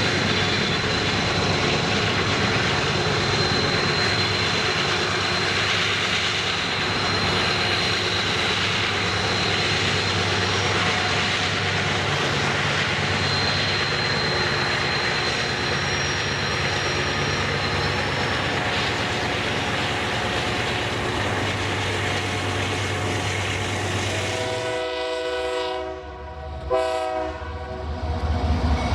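A freight train running past with a steady rumble of locomotive engine and rolling wagons. Near the end the locomotive's horn sounds in a few short blasts.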